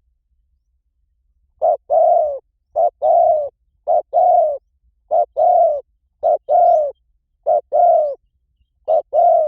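Spotted dove cooing: seven phrases, each a short coo followed by a longer one, repeated about once a second after a short silence at the start.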